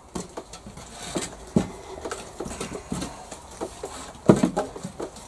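Lashed wooden tripod poles knocking and scraping as the legs are spread apart and set down, a scatter of light knocks with the loudest about four seconds in.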